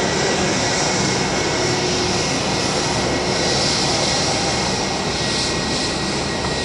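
Twin jet engines of a Boeing 777-200 airliner running at low thrust as it taxis and turns onto the runway. They make a steady rushing noise with a thin steady whine.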